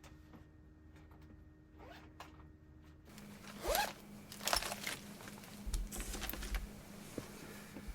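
A zipper pulled several times about halfway in, the first pull rising in pitch, over a faint steady hum.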